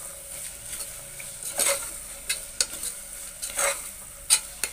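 Steel spoon stirring and scraping prawns, onions and tomatoes sautéing in an aluminium pressure cooker, over a steady sizzle of frying. Several sharp scrapes against the pot, the loudest near the end.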